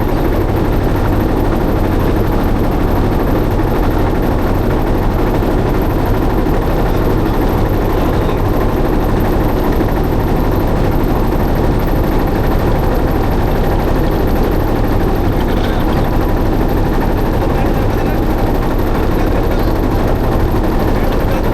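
A motorboat's engine running steadily, with a constant low chugging drone and water noise beneath it.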